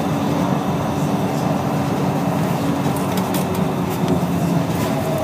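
Scania DSC1171 11-litre six-cylinder rear-mounted turbo diesel of a Scania L113CRL bus running at a steady pitch, with a few light clicks and rattles about three to four seconds in.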